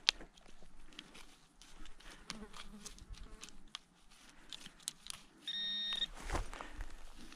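Handheld metal-detecting pinpointer probe buzzing once for about half a second, a rapid pulsing tone, as it is pushed through loose soil and signals a metal target in the hole. Around it, soft scrapes and clicks of the probe and gloved hand working the dirt, with a louder knock just after the buzz.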